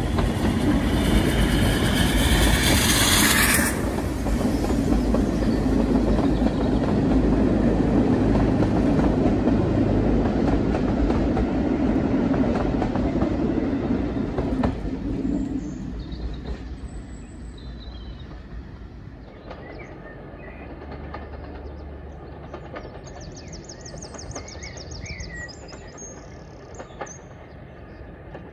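Steam-hauled passenger train passing directly beneath, with a loud rushing hiss for the first few seconds as the locomotive goes under. The coaches then rumble and clatter over the rail joints, fading over the next dozen seconds as the train draws away. Birdsong is left in the latter part.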